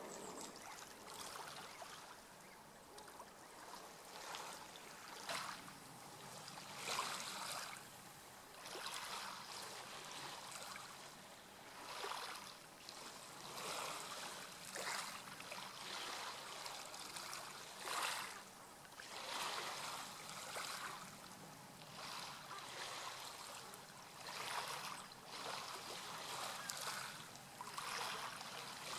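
Water lapping and trickling, coming and going in uneven surges every second or two.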